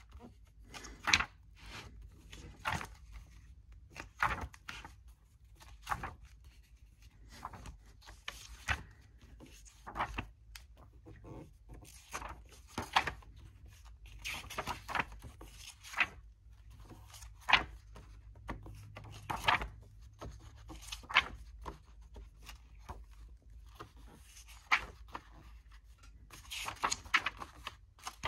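Paper pages of an old hardback book being turned one after another by hand, each turn a short papery rustle, about one every second or two.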